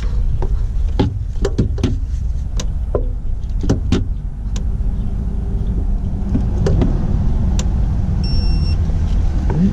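Irregular metallic clicks and knocks of hand tools as the fuel pump's mounting bolts are tightened, most of them in the first few seconds, over a steady low rumble.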